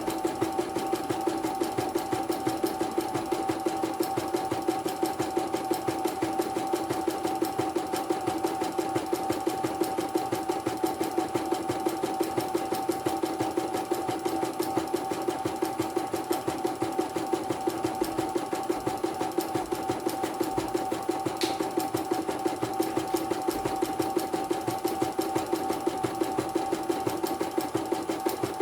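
CNY portable computerized embroidery machine stitching steadily, its needle striking in a fast, even rhythm over a constant motor whine.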